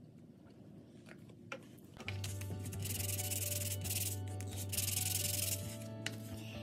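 A small banksia-pod earring piece inlaid with turquoise being rubbed by hand on a sandpaper disc laid flat on the bench. A scratchy sanding noise starts about two seconds in and goes in a few slow strokes.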